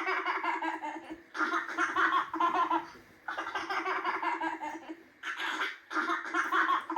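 Zombie baby Halloween prop playing a recorded laugh through its speaker, in several bursts of about a second each with short pauses between.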